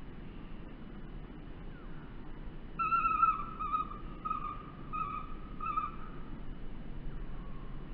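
Common kingfisher calling at its nest bank: a series of about five shrill whistled notes, the first drawn out and loudest, the rest short and evenly spaced.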